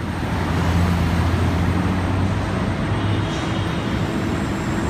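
Porsche Cayman's flat-six engine running as the car drives through traffic, a steady low drone over street traffic noise that eases a little about three seconds in.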